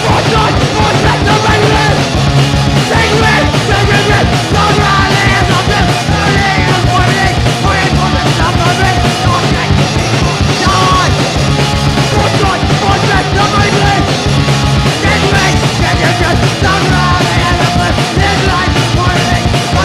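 Punk rock recording with yelled vocals over a full band of guitar, bass and drums, loud and unbroken throughout.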